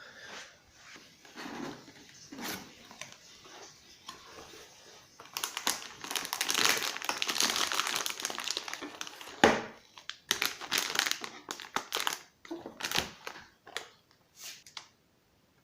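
Packaging being handled and crinkled: a dense stretch of crinkling and rustling in the middle, followed by scattered sharp clicks and knocks.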